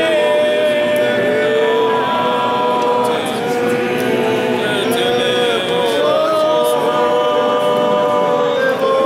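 A group of voices singing a church hymn together, holding long notes that glide from one pitch to the next.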